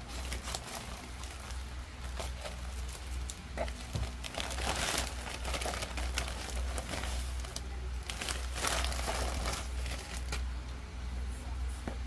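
Plastic courier mailer bag crinkling and rustling as it is cut open and the plastic-wrapped parcel inside is pulled out, with the loudest crinkling about four and eight seconds in. A low steady hum runs underneath.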